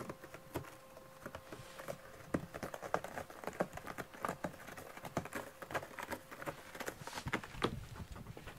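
Cat's claws raking a corrugated cardboard scratcher: a string of irregular scratchy clicks that thickens after a couple of seconds and thins out near the end.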